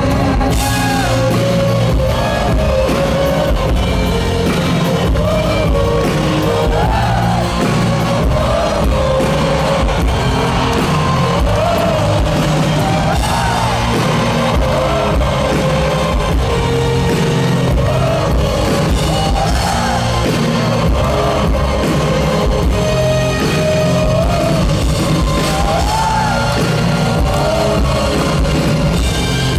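Live rock band playing in an arena while a large crowd sings the melody along with it, with some shouts and whoops.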